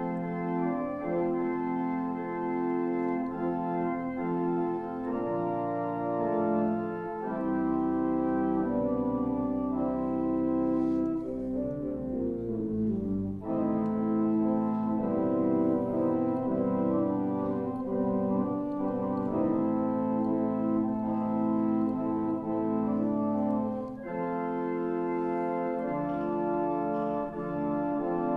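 Organ playing slow, sustained chords that change every second or two, with short breaks between phrases about halfway through and again near the end.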